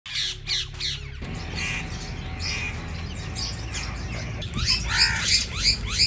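A flock of rose-ringed parakeets squawking, with many short, harsh calls one after another. The calls come thicker and louder in the last second and a half.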